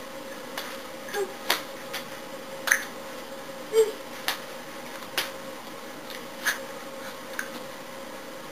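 Scattered sharp claps and taps at irregular moments, from hands striking each other and the body while signing, over a steady faint hum and hiss.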